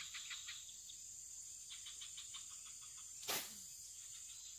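Insects chirping in rapid pulses over a steady high-pitched insect drone. One brief sharp noise cuts through about three seconds in.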